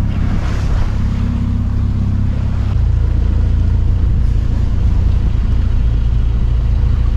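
Wind buffeting the microphone over the rush of water along the hull of a sailing yacht under way in choppy seas. The low rumble gets louder about three seconds in.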